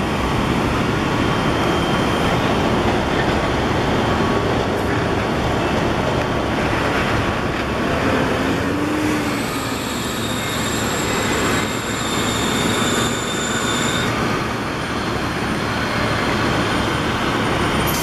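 Heavy diesel engines of fire trucks and water tankers running, a steady loud rumble with a rushing noise over it. A thin high whine joins for a few seconds past the middle.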